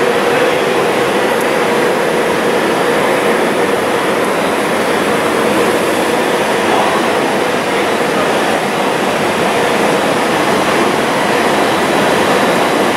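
FS E464 electric locomotive with Intercity coaches at a station platform: a loud, steady whir with a steady mid-pitched tone running under it, without wheel clatter.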